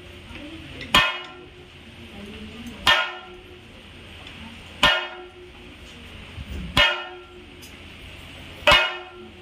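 Thayambaka percussion of chenda drums and ilathalam cymbals: five slow, evenly spaced strokes about two seconds apart, each a sharp hit with a brief ringing tail.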